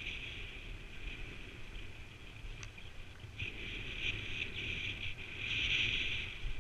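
Skis hissing and scraping over packed snow during a downhill run, louder in two stretches, about three and a half seconds in and again near the end, over a low rumble.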